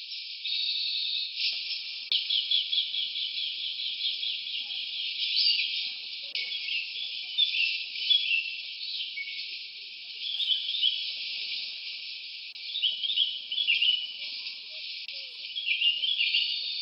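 Forest ambience: a steady high insect-like hiss with bird calls over it. The calls are quick chirping phrases that come again every couple of seconds.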